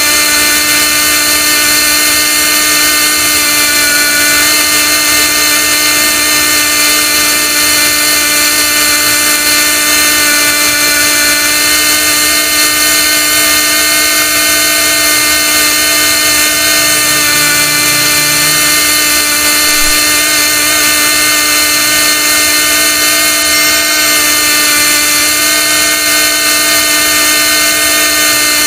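Pneumatic pilot-ladder winch on a ship's deck running steadily as it heaves the ladder up, a constant mechanical whine with several steady tones. The air pressure is too weak for the winch to lift the ladder unaided.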